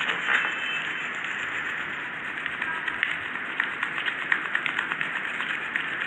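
Dry clay lumps being crumbled in a gloved hand over paper: a continuous run of small, irregular crunches and crackles.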